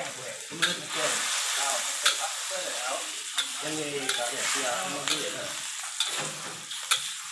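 Chopped softshell turtle meat and innards sizzling in a hot metal wok while a metal spatula stirs and scrapes them, with a sharp clink of spatula on wok every second or so.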